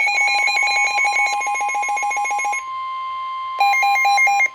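Emergency alert tones for a tornado warning: a rapidly pulsing alarm over a steady high tone. The pulsing stops a little past halfway, leaving the steady tone alone, then comes back briefly near the end.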